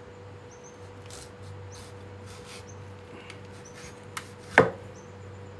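Chinese cleaver slicing through a large red zhusha lian tuber on a wooden chopping block: faint cutting scrapes and clicks, then one sharp chop near the end as the blade goes through onto the block.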